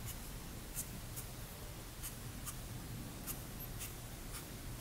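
Tip of a Staedtler white metallic pen dabbing and stroking small accents onto card: a series of faint, irregular short taps and scratches.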